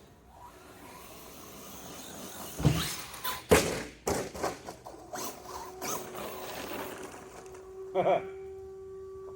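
Arrma Kraton RC truck running on a flat tyre, its noise building and then two hard thuds about two and a half and three and a half seconds in as it hits the ramp or lands, followed by scattered clattering. A steady hum sets in near the end.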